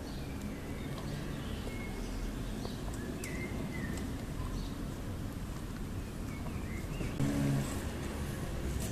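Boxer puppy chewing on a braided rope toy, with small birds chirping now and then in the background over a steady low rumble. A brief, louder low sound comes about seven seconds in.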